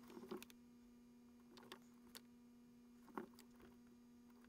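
Near silence: a faint steady hum with a few soft, short clicks.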